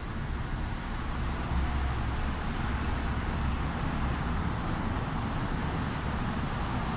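Steady low rumble with an even hiss: outdoor background noise, with no distinct bird calls or knocks standing out.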